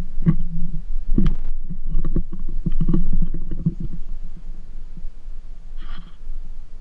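Wind rumbling on the camera microphone of a moving bicycle, with knocks and rattling from the bike-mounted camera pole as it is swung round in the first few seconds. A short squeak comes about six seconds in.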